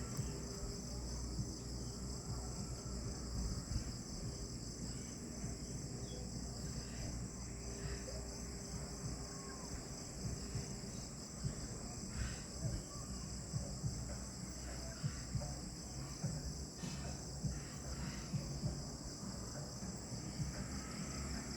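Evening chorus of insects, a steady high-pitched shrill trill with a fine, even pulse, over a low rumble.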